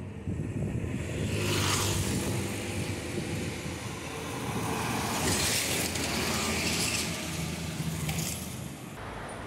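Road traffic noise: a steady low engine hum under the hiss of tyres on the road, swelling louder twice.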